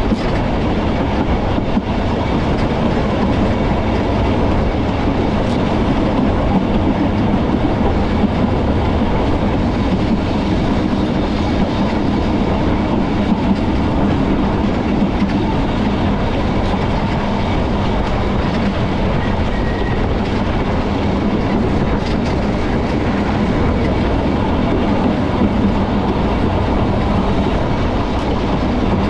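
Manx Electric Railway vintage electric tramcar running along the narrow-gauge line, heard from on board: a loud, steady running noise of wheels on the rails that holds at an even level throughout.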